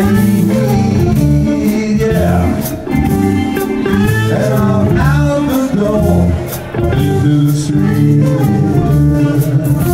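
Live blues band playing a slow blues number: electric guitar over bass and drums, with a melodic lead line.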